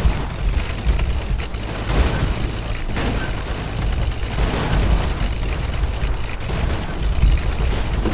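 Heavy diesel engine running steadily: a deep rumble with rapid, even knocking running through it.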